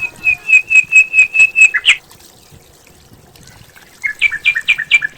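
A bird calling: a quick run of about eight repeated high notes ending in a falling note, then after a two-second pause a second run of about five two-part notes.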